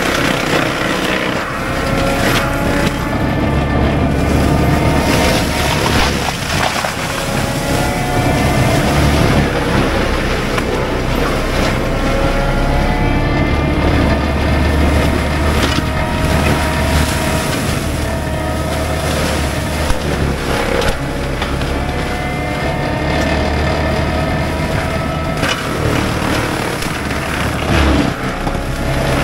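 Cat 299D3 compact track loader's diesel engine working under load while its Fecon BlackHawk forestry mulcher drum spins and grinds brush: a steady, loud, heavy drone with a whine above it that wavers a little in pitch.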